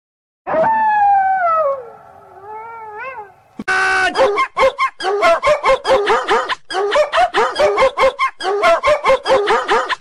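Wolf-howl ringtone: one long howl falling in pitch, trailing off into a few short wavering rises. A brief buzzy blip follows, then a fast run of short yips, about four a second.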